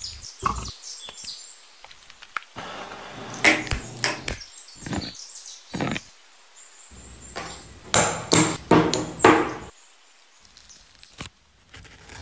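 Food-preparation sounds: a series of short knocks, clinks and scraping strokes of a spoon and containers. The loudest is a cluster of four strokes about eight to nine and a half seconds in.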